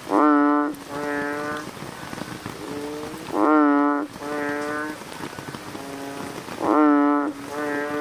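Banded bullfrog (Asian painted frog) calling: low calls about half a second long, a loud one three times roughly three seconds apart, each followed by a softer answering call, with fainter calls between. Under it runs a steady hiss of rain.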